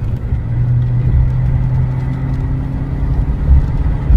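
Car engine running steadily under way, a low hum over road rumble, heard from inside the moving vehicle.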